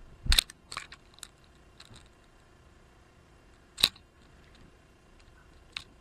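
Irregular sharp pecks and taps on a wooden platform bird feeder as a great spotted woodpecker feeds at the seed tray. A loud pair comes about a third of a second in, a few lighter taps follow, then another loud one near four seconds and a light one near the end.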